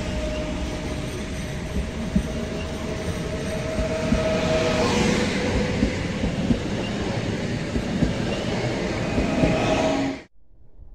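Koleje Śląskie electric multiple unit running past along a platform: steady wheel and running noise with a held tone in the first half and scattered clicks from the rails. The sound cuts off suddenly near the end.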